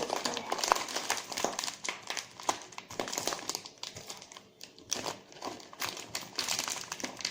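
Packaging crinkling and rustling as it is handled, with many small irregular clicks and taps.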